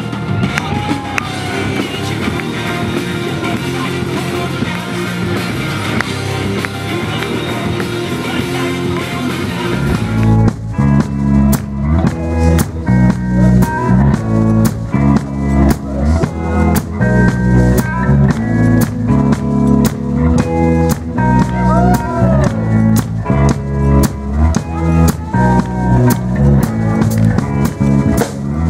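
Live rock band playing: drum kit, electric guitar and bass guitar, with a singer. About ten seconds in, the sound changes to a closer, drum-heavy mix, with sharp, evenly spaced drum and cymbal hits over heavy bass notes.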